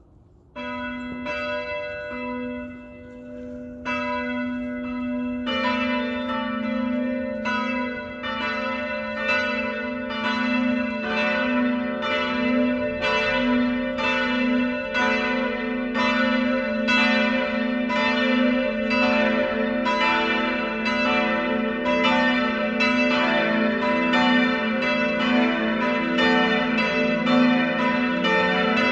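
The four swinging bells of a church tower starting their full peal one after another: the first bell begins striking within the first second, others join over the next few seconds, and the deepest bell comes in about two-thirds of the way through. The overlapping strokes ring on continuously.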